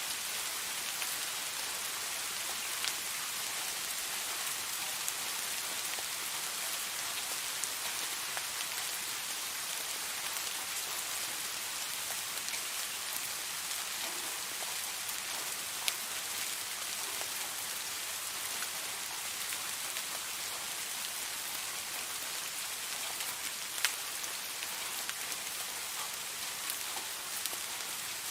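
Steady rain falling, an even hiss with scattered sharper drop ticks, two of them louder.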